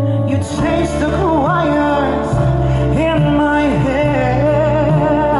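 Live pop ballad: a male singer sings a melody with sliding, wavering pitch over held instrumental chords and a steady bass line.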